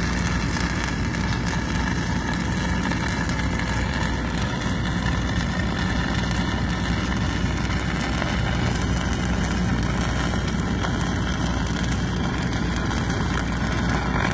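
Stick-welding arc burning on a steel pipe joint: a steady crackle and hiss from the electrode, over a steady low hum.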